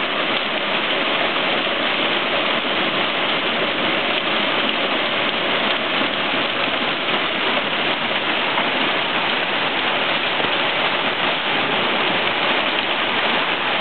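Torrential thunderstorm rain pouring down in a steady, even hiss, splashing onto flooded pavement and yards.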